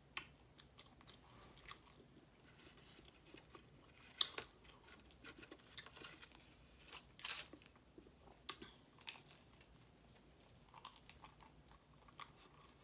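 A person chewing and eating food close to the microphone: faint scattered mouth clicks, with a few louder short bites, the loudest about four and seven seconds in.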